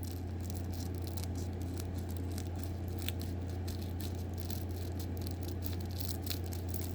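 A trading-card booster pack being opened: faint crinkling and small clicks of the wrapper as it is cut and pulled open. A steady low electrical hum runs underneath and is the loudest thing.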